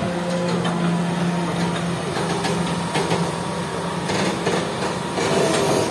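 Hitachi EX200 hydraulic excavator's diesel engine running under working load, a steady low hum that weakens about two seconds in, with scattered knocks and rattles as the machine works its bucket.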